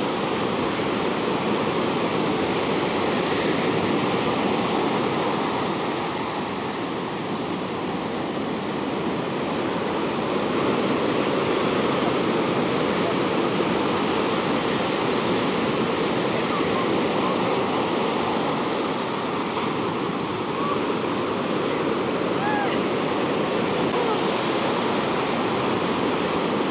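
Ocean surf breaking and washing up a sandy beach: a steady rush of water that swells and eases slightly as the waves come in.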